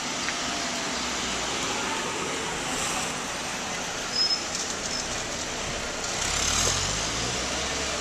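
City street traffic: a car drives past close by, its engine loudest about six to seven seconds in, over a steady hum of traffic. A brief high chirp sounds about four seconds in.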